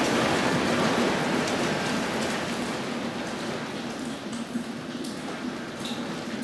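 Heavy storm rain on the building, heard from inside as a steady hiss that slowly gets quieter, with a few faint ticks.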